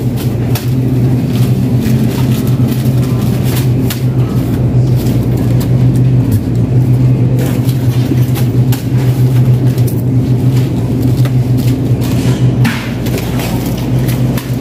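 Shopping cart rolling along a supermarket aisle: a steady low rumble from the wheels, with light clicks and rattles from the cart's frame.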